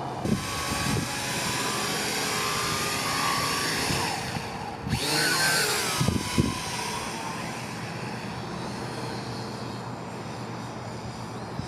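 Small quadcopter drone's propellers whining as it flies fast, the pitch sliding up and down with the throttle, loudest as it passes close about five seconds in. A few low thumps come through as well.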